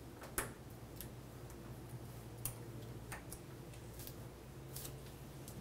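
Faint scattered clicks and ticks of a small Phillips screwdriver turning a tiny screw out of an iPhone 4's metal frame, with sharper clicks about half a second and two and a half seconds in. A low steady hum runs underneath.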